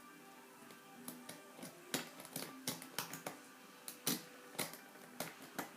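Steel rake pick scraping and clicking against the pin tumblers of a cheap Egret padlock under tension, with irregular sharp clicks that come faster and louder from about two seconds in. The raking sets only a few pins and does not open the lock.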